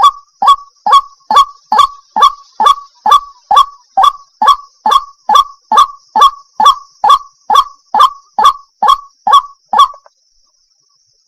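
Waterhen calling, a monotonous series of short, identical calls repeated about twice a second. The calls stop suddenly about ten seconds in.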